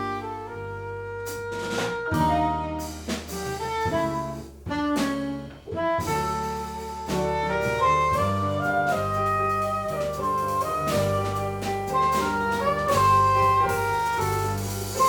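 Live jazz quartet playing: a saxophone line over piano, bass and drum kit. The cymbals play more densely from about six seconds in.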